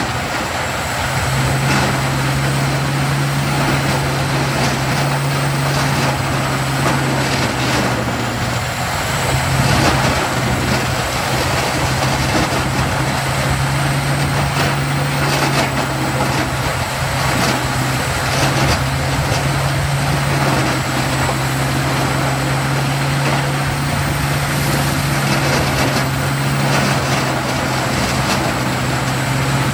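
Rotochopper B-66 tracked horizontal wood grinder running under load, its engine and rotor keeping up a steady hum while logs and stumps tipped in from a loader bucket are ground up, with frequent irregular cracks and knocks of wood breaking.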